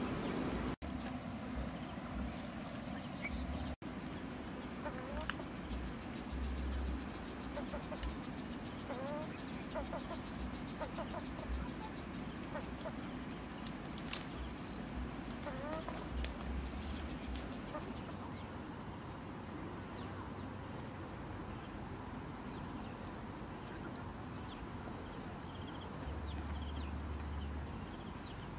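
Hens clucking in short, rising calls over a steady high-pitched drone, which stops about two-thirds of the way through.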